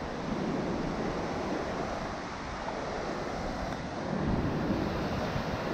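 Ocean surf washing in over the shallows, with wind on the microphone: a steady rushing that swells a little about four seconds in.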